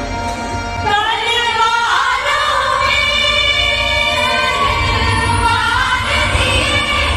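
Indian patriotic (deshbhakti) song with a chorus of singing voices, a sliding phrase about a second in and long held notes in the middle, played through stage loudspeakers.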